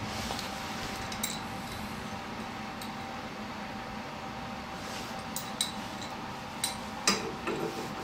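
Scattered metallic clinks and ticks of a socket wrench and an adjustable wrench being set against the bolt and hex shaft of a snowblower's friction-wheel drive, with the sharpest clinks in the second half, over a faint steady hum.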